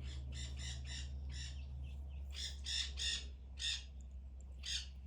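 Parrots squawking: about ten short, harsh calls in quick runs, over a steady low hum.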